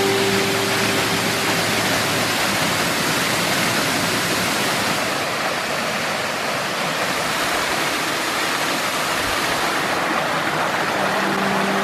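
Steady rush of water pouring over rocks from a waterfall and small cascading stream.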